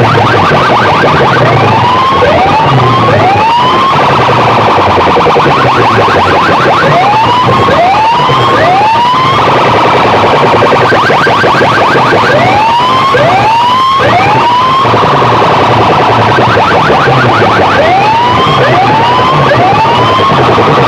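DJ sound system playing competition music very loud: groups of three rising siren-like sweeps every five seconds or so, over rapid repeating chirps and a steady pulsing bass.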